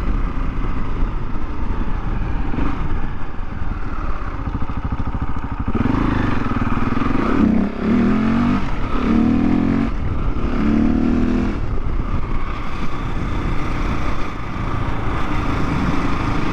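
Husqvarna 701's big single-cylinder engine running through an Akrapovic slip-on exhaust while the bike is ridden, the revs rising and falling several times in the middle.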